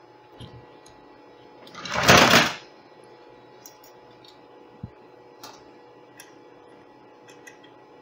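Workbench handling noise while a soldering iron is brought to a circuit board: a short, loud rustle about two seconds in, then a few faint ticks and a small thump over a low steady hum.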